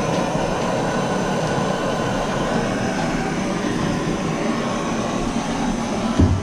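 Handheld propane torch burning steadily while heating a copper pipe joint for soldering. A short knock near the end.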